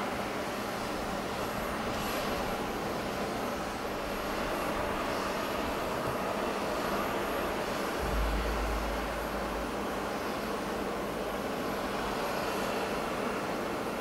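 Distant Bombardier Dash 8-300's twin turboprop engines droning steadily as the aircraft flies away after a low pass. A brief low rumble comes about eight seconds in.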